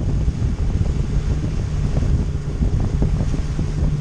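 Outboard motor running steadily as the boat trolls, with heavy wind buffeting on the microphone and water rushing in the wake.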